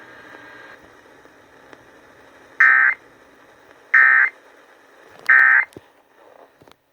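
NOAA Weather Radio's Emergency Alert System end-of-message data: three short bursts of buzzing digital tones about 1.3 seconds apart. They follow faint radio hiss and mark the end of the severe thunderstorm warning broadcast.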